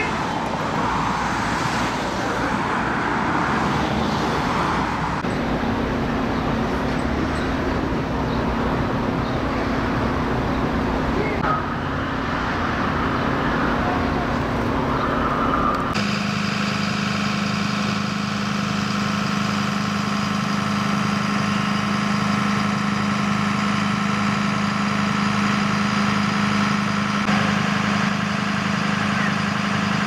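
Road traffic noise, changing about halfway through to the steady hum of an idling vehicle engine.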